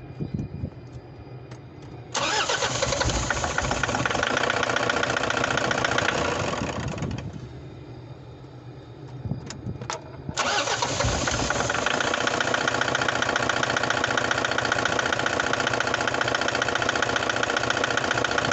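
Toyota Hiace D-4D diesel engine starting and running, dying away about seven seconds in, then starting again about ten seconds in and idling steadily. This engine knocks and vibrates with heavy white smoke, a fault the mechanics take as needing an overhaul.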